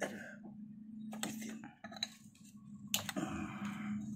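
Metal hand tools clicking and clinking against a Vespa scooter engine as a mechanic works its top nuts with a T-handle socket wrench: a few sharp clicks, one about every second, over a low steady hum.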